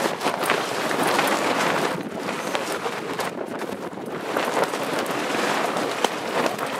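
Wind buffeting the camera microphone, a rushing noise that rises and falls in gusts.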